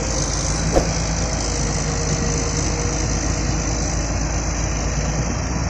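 Heavy diesel engine running steadily, with a single brief sharp clank-like sound about a second in.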